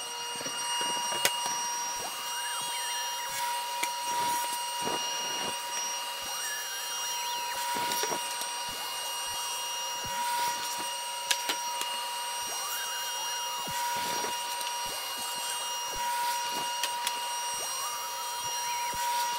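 Table saw with an 80-tooth triple-chip melamine blade running and ripping melamine-faced particleboard, together with a dust collector running, as a steady whine. A few sharp knocks come as the boards are handled, one about a second in and another past the middle.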